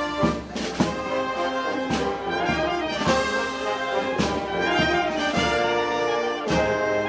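Brass band playing Moros y Cristianos festival music: trumpets and trombones carry the melody over percussion strikes that land about once a second.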